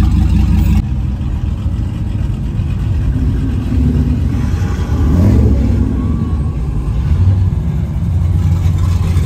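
Pickup truck engines rumbling low as the trucks drive slowly past, the sound dropping suddenly just under a second in and swelling briefly about five seconds in.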